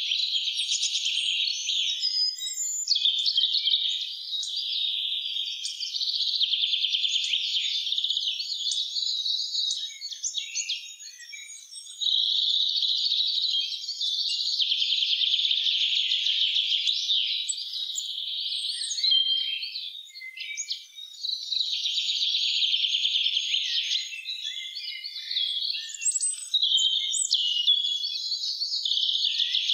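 Songbirds singing in a spring forest: long runs of high, rapid, twittering song, with short lulls about 11 and 20 seconds in.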